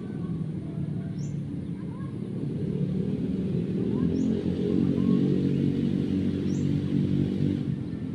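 An engine running steadily, a little louder in the middle, with short chirps of birds every second or two.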